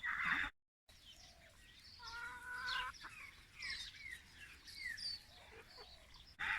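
Hens clucking and calling, a string of short, falling notes.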